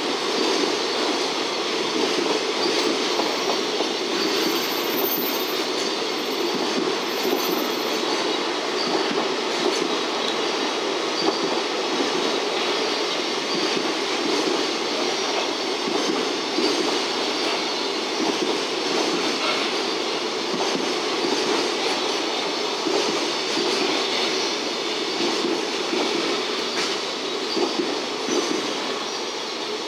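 JR Freight container flat wagons rolling past at speed: a steady noise of steel wheels running on the rails.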